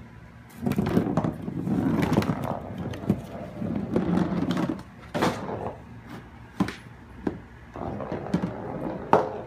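Golf balls rolling and clattering against the plastic cup and ball-return trough of an indoor putting mat as a kitten paws at them. Two stretches of rolling rumble in the first half give way to a string of sharp clicks and knocks.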